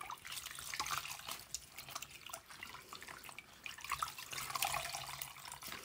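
Faint water sloshing and dripping as wet raw wool locks are squeezed in a plastic bowl of wash water and lifted out, water running back off the fleece into the bowl.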